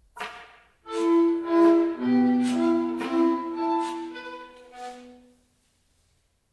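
Chamber ensemble of flute, clarinet, violin, double bass, piano and percussion playing a short phrase of contemporary music: a sharp attack, then several overlapping held notes with repeated accents, stopping abruptly into silence about five seconds in.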